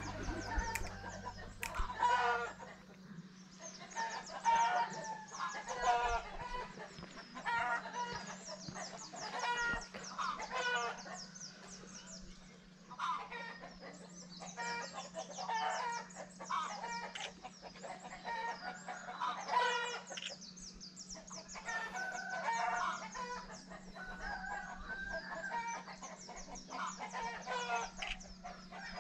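Chickens clucking and crowing in many short calls, again and again, over a steady low hum.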